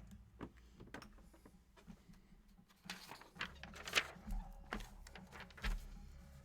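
Handling noise from trading-card packaging and cards: scattered clicks and short rustles, busiest and loudest between about three and six seconds in.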